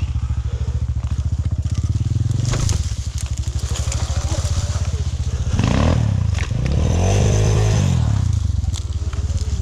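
Off-road vehicle engine coming in loud all at once and pulling away over rough forest track. It is revved up and down, its pitch rising and falling, with the loudest revs about six and seven to eight seconds in.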